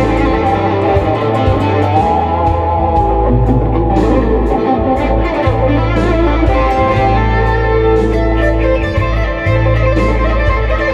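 Improvised electric guitar lead on a Gibson Les Paul through a Mesa/Boogie amp, a run of quickly picked notes over a backing track whose bass notes are held long.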